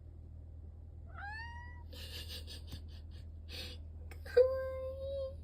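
Long-haired cat meowing twice: a short call rising in pitch about a second in, then a louder, longer call held at a steady pitch near the end.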